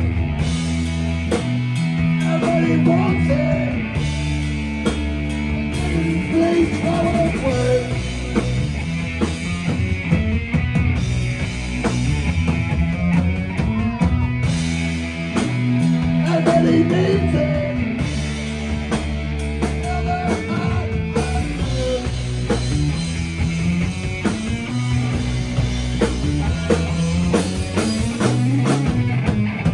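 Live heavy metal band playing loudly: distorted electric guitar and bass guitar hold a heavy riff of long notes that step up and down, over a drum kit. A voice sings through the PA now and then.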